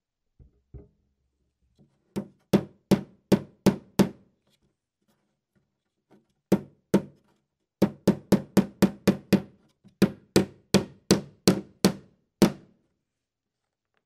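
Hammer driving nails into wood. A couple of light taps, then runs of sharp blows at about three a second with short pauses between, ending on a single blow.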